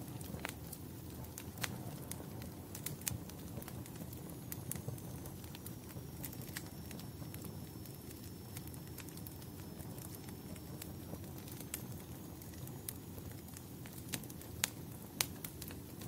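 Wood fire crackling in a fireplace: a steady low rumble of burning logs with irregular sharp pops and snaps, a few louder pops near the end. A faint high whistle dips and rises through the middle.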